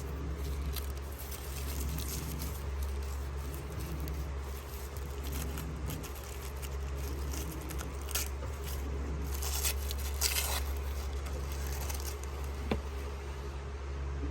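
Packaging rustling and crinkling in scattered bursts as a wallet is unboxed by hand, with one sharp click near the end, over a steady low hum.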